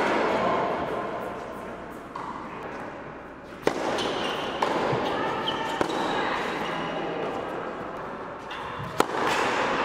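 Tennis ball struck by racquets and bouncing on an indoor hard court during a rally. The sharpest strike comes a little under four seconds in, two smaller knocks follow within about two seconds, and another comes near the end, over the steady hum of the hall with voices in the background.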